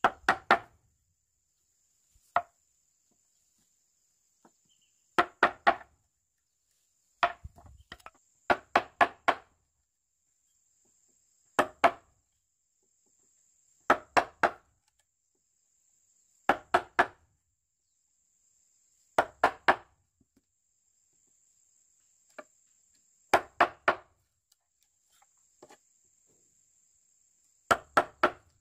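Sharp knocks of a tool striking wood, in quick groups of two to four strikes about every two to three seconds.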